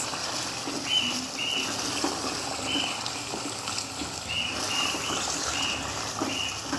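Cream chicken sizzling and bubbling in a pan, a steady frying hiss. Short high chirps repeat throughout in the background.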